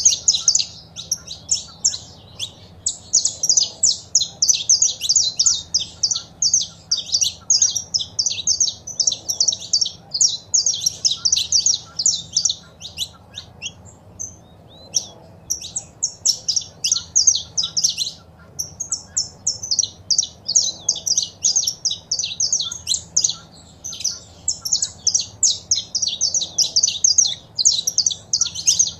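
Saffron finches singing and calling: fast runs of high, sharp notes in long phrases, with two short breaks a little past the middle.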